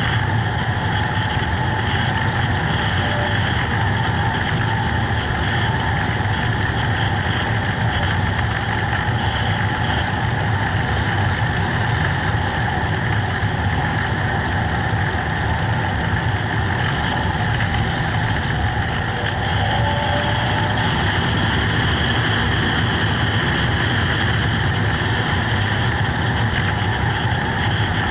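Motor and propeller of a radio-control FPV plane running steadily, a constant whine over a rushing noise with no change in pitch.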